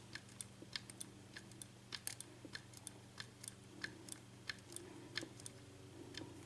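Faint, irregular small clicks of a lock pick working the pins inside an Assa six-pin oval cylinder lock, probing pin 1 to get it to set, over a low steady hum.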